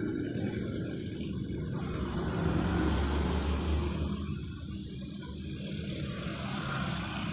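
Low, steady engine-like rumble over a background hiss, swelling a little near the middle, like a motor vehicle running.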